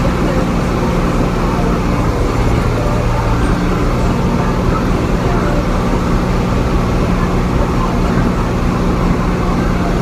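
Diesel engine of a tractor-type farm vehicle running steadily under way, a constant drone heard from inside the closed cab.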